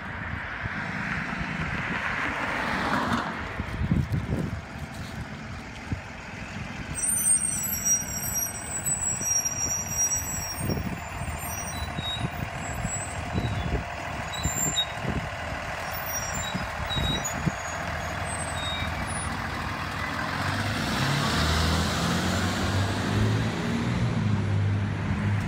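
School bus engine running as the bus turns slowly through a street chicane and passes close by. Near the end a second vehicle's engine grows louder.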